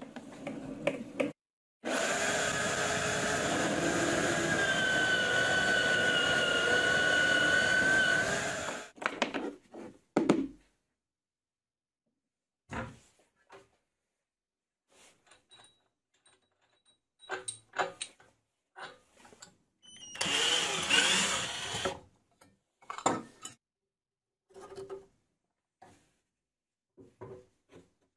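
Drill press running for about seven seconds as it bores through a stack of glued plywood discs: a steady whine with a slowly falling tone that cuts off suddenly. Then scattered clicks and knocks of parts being handled, and a rough two-second rasping about twenty seconds in.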